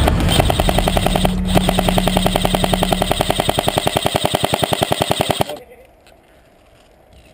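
Airsoft rifle firing one long full-auto burst, about eleven shots a second, stopping suddenly about five and a half seconds in.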